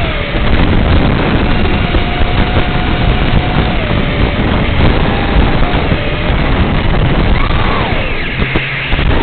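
FPV racing quadcopter's motors and propellers running with rushing noise, their whine wavering up and down with the throttle, and a sharp dip and climb in pitch near the end.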